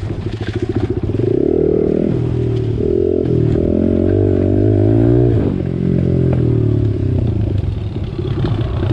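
Small four-stroke pit bike engine running under changing throttle, its pitch climbing and falling several times, highest about five seconds in before dropping off quickly.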